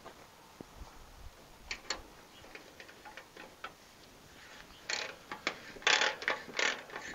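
Hand ratchet wrench clicking on a nut of the gas tank clamp, loosening it. A few faint ticks come first, then from about five seconds in a run of quicker, louder ratcheting strokes.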